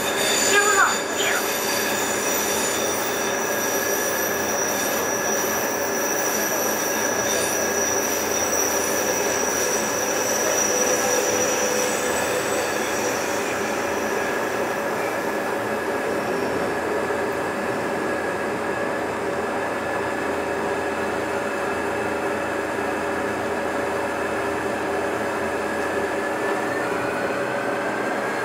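Running noise of a New Taipei Circular Line metro train heard from inside the car: a steady rumble carrying several steady whining tones. The highest tone fades out about halfway through, and a new tone rises near the end. A short louder sound comes just after the start.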